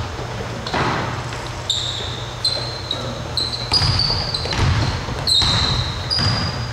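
Basketball dribbling on a hardwood gym floor, with many short, high sneaker squeaks as players cut and stop, echoing in a large gym.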